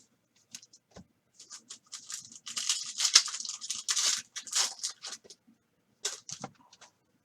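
A trading-card pack's plastic wrapper being torn open, crinkling and crackling for about three seconds, with a few sharp clicks of handling before and after.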